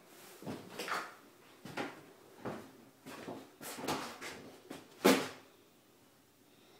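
Irregular knocks and scuffs of footsteps on a bare hard floor, with a louder sharp knock about five seconds in, in a small empty room.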